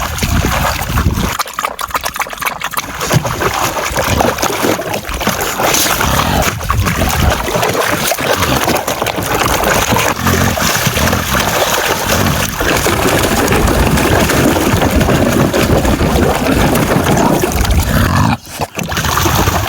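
Wind buffeting the microphone and water rushing and splashing around a small boat under way, a dense, steady rush with a brief drop near the end.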